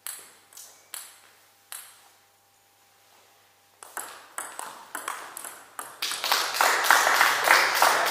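Celluloid-type table tennis ball clicking off paddles and table: a few scattered bounces, a pause, then a quick rally of hits about four seconds in. About six seconds in, loud clapping and voices break out as the point ends.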